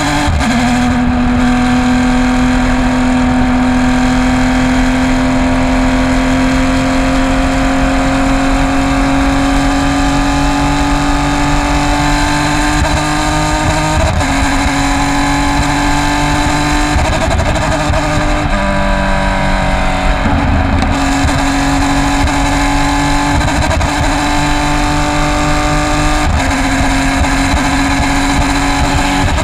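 Porsche race car engine under load at speed, its pitch climbing slowly for about fourteen seconds before a gear change. The revs drop and break up for braking and downshifts, then climb again, with another shift near the end. The engine is suffering from a bad misfire.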